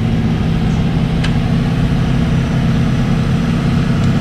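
Off-road Kia 4x4's engine idling steadily, with a single short click about a second in.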